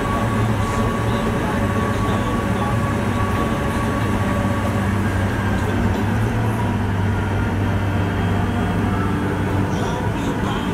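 Case IH Steiger 550 Quadtrac tractor's diesel engine running steadily while the tractor travels on a gravel road, heard from inside the cab as a steady low drone.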